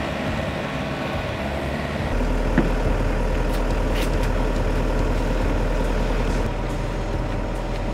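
Yanmar mini excavator's diesel engine running steadily, working harder with a deeper, louder drone from about two seconds in and easing back a little near the end.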